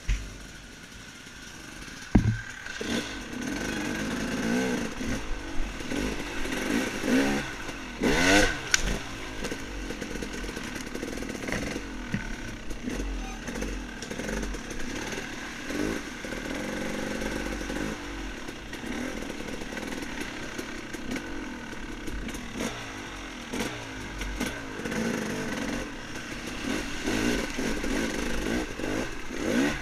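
Dirt bike engine revving up and down, its pitch rising and falling as the throttle is worked, with a sharp knock about two seconds in.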